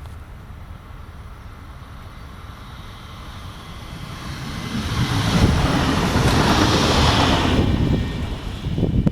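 A train passing close by: a low rumble that grows from about four seconds in into a loud rush of wheel and running noise, peaking for a couple of seconds before easing off near the end.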